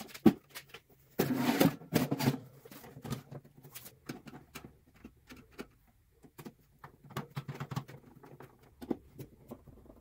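Irregular knocks and clicks of an electric space heater's sheet-metal assembly and wooden cabinet being handled and fitted back together, with a louder scraping rub between about one and two and a half seconds in.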